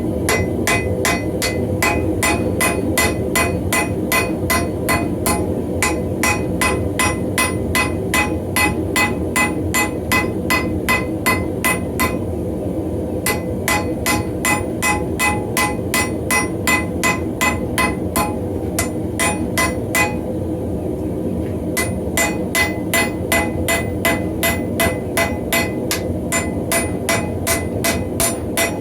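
Hand hammer striking a hot steel axe drift on an anvil, about two to three blows a second with a ringing tone on each strike, to round off the drift's square corners. The hammering stops briefly twice, near the middle and again about two-thirds of the way through, over a steady low rumble.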